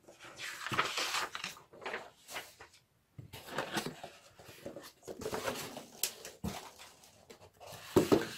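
Cardboard box being handled on a table: irregular rustling and scraping of cardboard as it is turned over and its flaps opened, with a sharper knock near the end.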